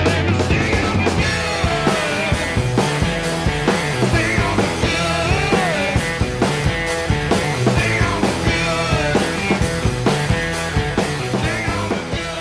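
Background rock music with a steady beat and bending lead lines.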